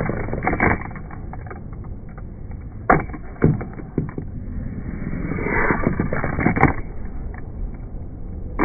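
Small toy skateboard's wheels rolling across a laminate tabletop, with several sharp clacks of the board hitting the table, the loudest about three seconds in and another near the end of a second roll.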